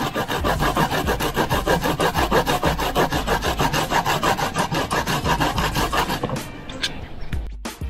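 A garlic clove being grated on a plastic grater: rapid, even rasping strokes, several a second, that die down and stop near the end.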